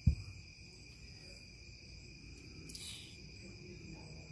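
Crickets chirping in a steady, unbroken chorus of high tones. A single low thump comes just after the start, and there is a short hiss about three seconds in.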